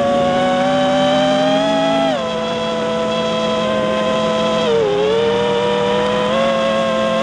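Quadcopter's electric motors and propellers whining steadily. The pitch drops about two seconds in, dips again near five seconds, and rises back a little after six seconds.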